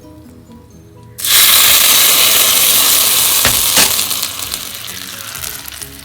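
Hot ghee tempering of mustard seeds, cumin and peppercorns poured into pepper rasam. It bursts into a loud sizzle about a second in, then dies down over the next few seconds.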